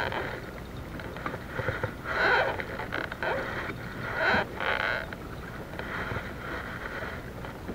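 Choppy water slapping against a kayak's hull in irregular swells, with wind on the microphone.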